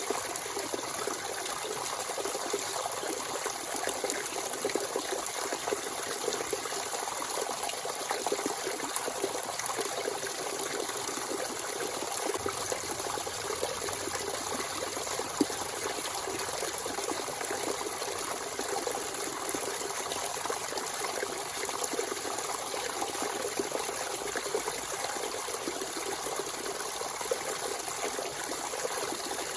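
Natural spring water running and trickling steadily, with a constant splashing patter.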